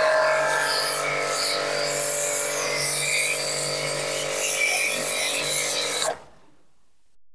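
Aimex DT-6502 electric pressure washer running with a steady motor hum, spraying foam through a foam cannon with a hiss of spray. The sound cuts off suddenly about six seconds in.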